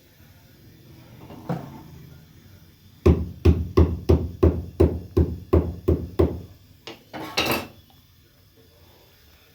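About ten heavy, evenly spaced knocks, about three a second, like something being pounded or tapped on a hard surface, starting a few seconds in. A shorter scraping rustle follows near the end.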